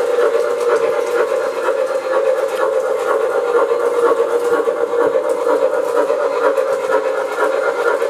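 MTH Dreyfuss Hudson O-gauge model train running on its track, making a steady, unbroken tone with a clear pitch.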